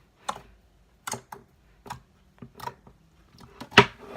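Handmade slime being squeezed and poked, giving a string of separate clicks and pops at an uneven pace, the loudest near the end.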